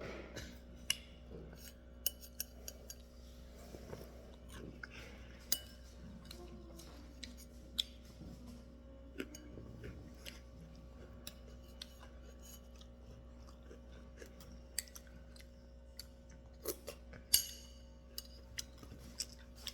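Scattered small clicks and taps at an uneven pace over a faint steady hum, with a sharper click about seventeen seconds in.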